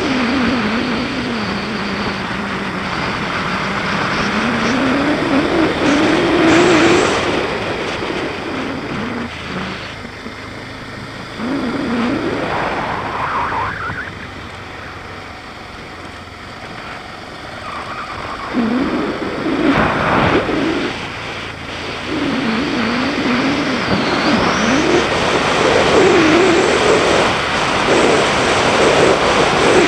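BMW G650GS single-cylinder motorcycle engine under way, its pitch rising and falling as the throttle opens and closes. It eases off and goes quieter in the middle, then pulls harder again toward the end.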